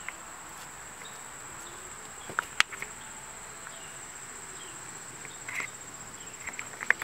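Insects trilling: one steady high-pitched buzz that runs without a break. A few sharp clicks and taps cut in about two and a half seconds in and again near the end.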